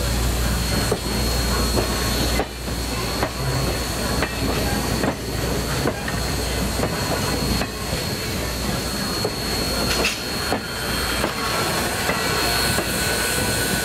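Passenger coaches of a steam-hauled excursion train rolling slowly past, their wheels clicking irregularly over the rail joints, with steam hissing from the locomotive.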